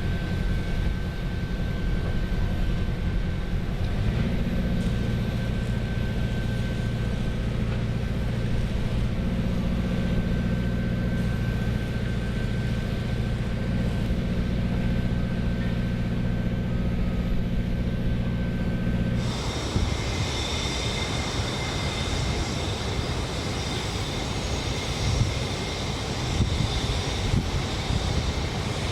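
Steady drone of heavy machinery engines running, with a low hum and a faint high tone; it cuts abruptly about two-thirds of the way in to a different, noisier machine sound with a high whine.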